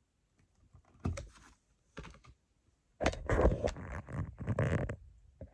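Wire strippers taking about half an inch of insulation off household outlet wires: two short snips about 1 and 2 seconds in, then a louder stretch of clicking and handling from about 3 to 5 seconds.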